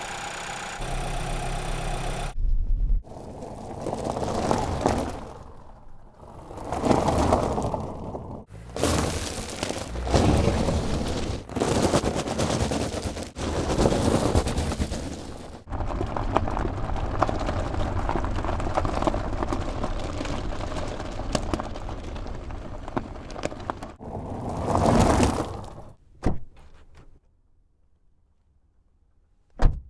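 A montage of recorded car sounds cut hard one after another: several swells that rise and fall, like an engine revving up and back down, and a long steady stretch of the engine running. Near the end come a few short clicks.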